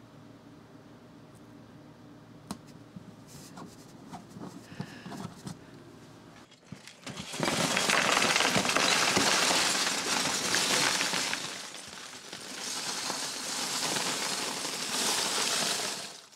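Loose Lego bricks poured from a clear plastic tub into a plastic folding storage box, a loud, dense rattling clatter of plastic pieces that starts about halfway through, dips briefly, then picks up again and stops just before the end. Before the pour there are only a few faint clicks.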